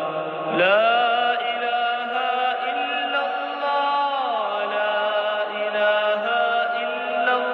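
Background music of a chanting voice holding long notes, sliding down to a lower pitch about four seconds in.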